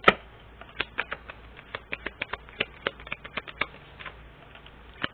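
Irregular light clicks and taps, a few a second, with one sharper, louder click at the very start.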